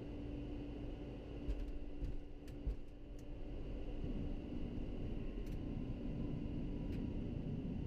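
Cockpit sound of a private jet touching down: a steady hum under low noise, with a few thumps and clicks between about a second and a half and three seconds in as the wheels meet the runway. The noise then grows louder and stays up from about four seconds in as the jet rolls out.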